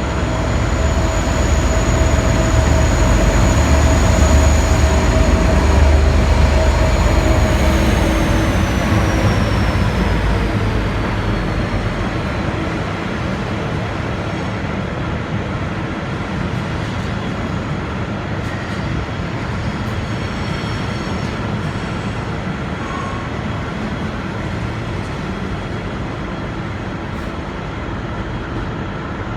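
V/Line N class diesel-electric locomotive departing, its engine rumbling with a steady high whine that falls in pitch from about eight seconds in as the engine's sound fades. The train then rolls on with a steadier, quieter rushing noise.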